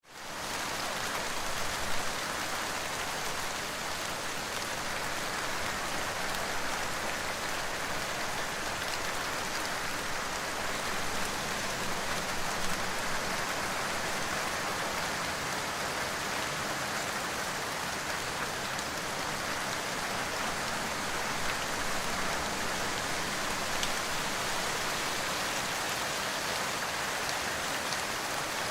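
Steady rain falling, a continuous even hiss with scattered faint drop ticks, fading in at the start.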